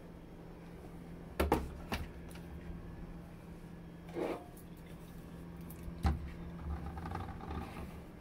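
Food containers and items being set down and moved on refrigerator shelves: a few sharp knocks and clunks, two close together early and a heavier one later, over a steady low hum.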